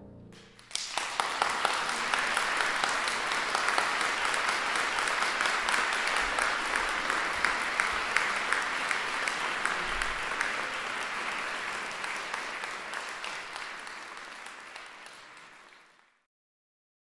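Concert audience applauding. The last piano chord dies away at the start, clapping breaks out about a second in, and it fades over the last few seconds before cutting off.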